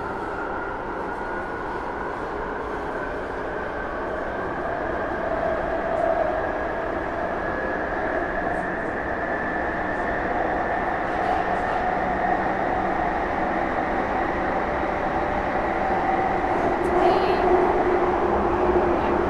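1996 Tube Stock's GTO-VVVF traction inverter and motor whine over rail running noise, the whine rising slowly in pitch for the first half, then holding steady as the train gathers speed. A few light clicks come near the end.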